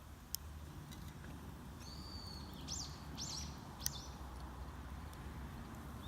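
A wild bird calling: one held high whistle, then three short arched notes about half a second apart. Two sharp clicks stand out, one near the start and one after the calls.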